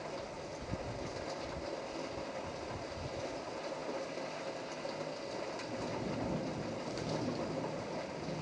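Thunderstorm ambience: steady rain noise with low rumbling, and a brief low hum near the end.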